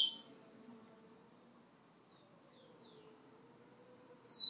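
Caged rufous-collared sparrow (tico-tico) singing. The last falling whistle of one song ends at the start, a few faint high notes come about halfway through, and the next song begins near the end with a high whistle.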